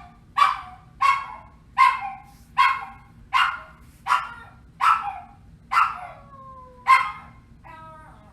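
Poodle barking loudly and repeatedly, about nine sharp barks evenly spaced. After the eighth bark comes a short falling whine, and a brief whimper near the end.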